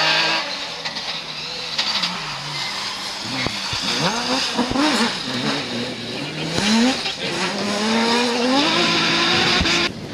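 Rally car engine revving hard, its pitch repeatedly climbing and dropping as it runs up and changes gear, over a hiss of tyre and road noise. It cuts off suddenly near the end.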